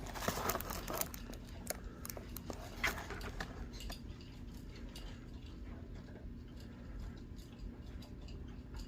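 Faint, scattered clicks and taps of small objects being handled, a few sharper ones in the first few seconds, over a low steady hum.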